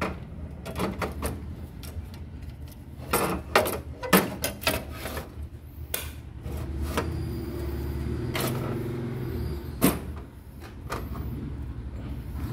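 Scattered clicks and knocks of hands handling the sheet-metal controller bracket and panels in the controller bay of a Ricoh MP 4002/5002 photocopier, over a low steady hum.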